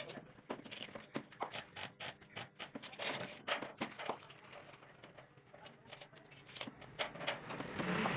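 Irregular sharp clicks and light taps, several a second, thinning out in the middle and growing denser and louder near the end.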